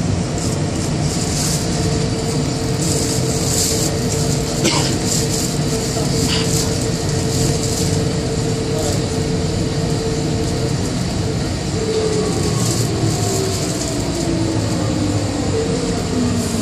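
Bombardier Innovia APM100 rubber-tyred people-mover running, heard inside the car: a steady motor whine and rolling noise with a few short rattles. About two-thirds in, the whine breaks into tones that fall in pitch as the train slows.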